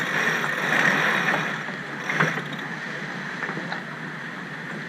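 Water and wind noise aboard a sailboat under way, louder for the first second or so and then easing, with a single knock about two seconds in.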